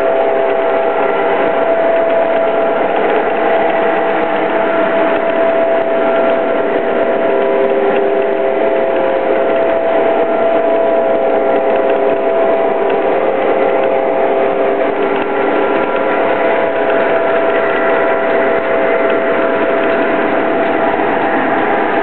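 Lionel Legacy New York Central F7 model diesel locomotives running on O-gauge track pulling passenger cars: a steady, dense mechanical clatter of wheels and gearing with a steady whine over it.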